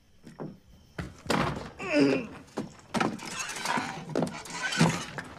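Slow heavy footsteps, then a wooden screen door creaking and rattling open with several thuds and knocks.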